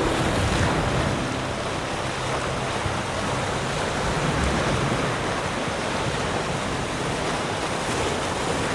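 Ocean surf washing on a beach: a steady wash of wave noise without breaks.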